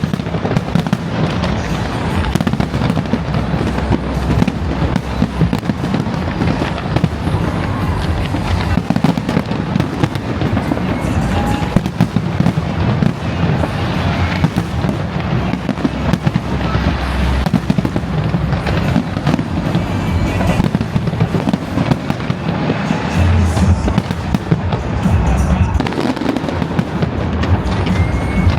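Fireworks going off in a dense, unbroken barrage: rapid bangs and crackling overlapping one another at a steady loudness.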